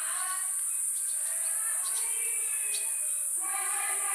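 A steady, high-pitched insect chorus drones without a break, with a few short bird chirps over it.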